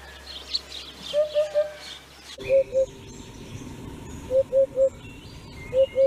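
Eurasian hoopoe calling: four short series of two or three low 'hoop' notes each, a second or two apart. Fainter high chirps of other birds sound behind it in the first half.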